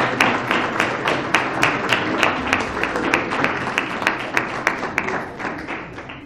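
Small audience applauding, with one nearby person's sharp claps standing out above the rest; the applause dies away near the end.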